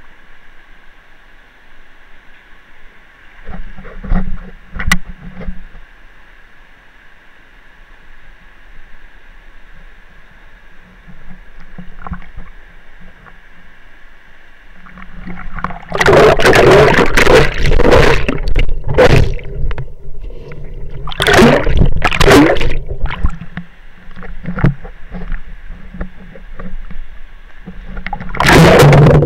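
Water splashing and sloshing right at the microphone of an action camera in a waterproof case, in loud irregular surges from about halfway through, over a steadier rush of water.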